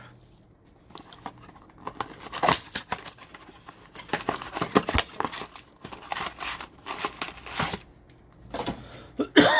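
Foil trading-card pack wrappers crinkling and tearing, with scattered light clicks and rustles of cards being handled. A brief louder sound near the end.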